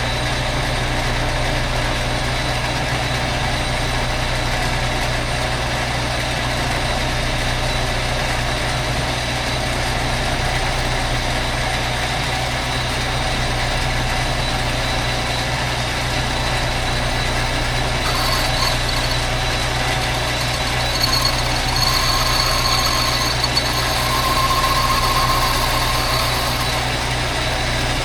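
Metal lathe running steadily, boring out a motorcycle cylinder, with a low motor hum. From about eighteen seconds in, thin high ringing tones come and go as the tool cuts.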